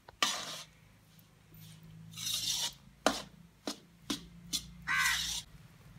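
Rasping scrapes of a metal spatula working through a crumbly flaxseed pinni mixture in a brass tray. The scrapes come in a few bursts, with short sharp taps between them.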